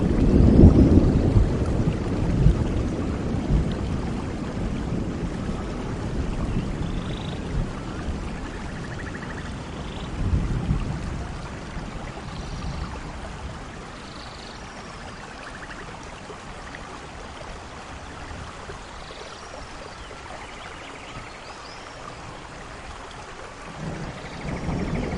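Thunderstorm: rain falling steadily with rolling thunder. A loud rumble at the start fades away over several seconds, a shorter rumble comes about ten seconds in, and another starts building near the end.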